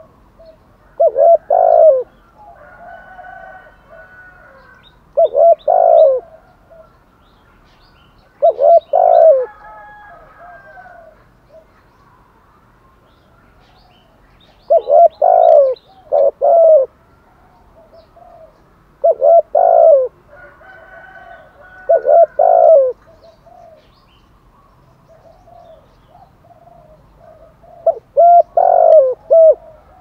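Spotted dove cooing close by: short phrases of two or three coos, repeated about every three to six seconds. Faint chirps of other birds sound between the phrases.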